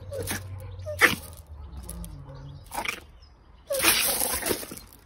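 A kitten guarding its food, hissing and growling in short bursts; the longest hiss comes about three-quarters of the way through.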